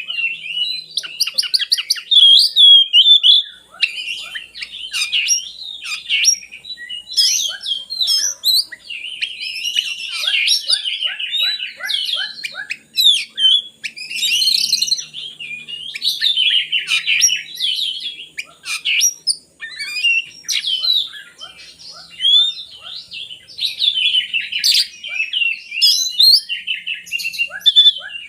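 Oriental magpie-robin (kacer) singing a rapid, varied song of whistles, trills and chattering notes, almost without pause.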